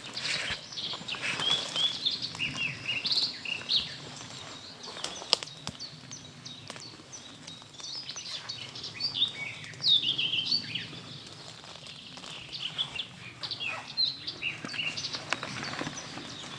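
Songbirds chirping and singing, with the rustling, brushing and occasional knocks of people crawling through thick undergrowth in field gear.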